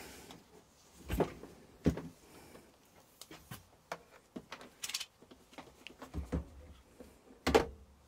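Irregular knocks, taps and clicks of hands handling a multimeter and the opened air fryer's parts on a bench, with the loudest knocks about a second in, just under two seconds in and near the end.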